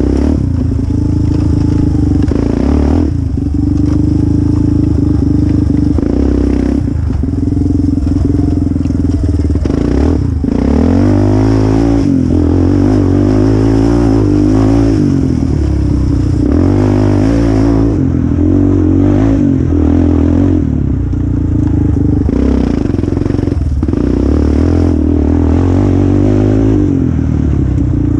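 Small single-cylinder ATV engine at race pace, its pitch climbing and dropping again and again as the throttle is worked and gears change. Clatter from the quad running over the rough dirt trail goes on underneath.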